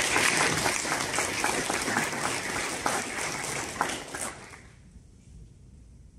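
Audience applauding, many hands clapping at once; the clapping dies away about four and a half seconds in, leaving quiet room tone.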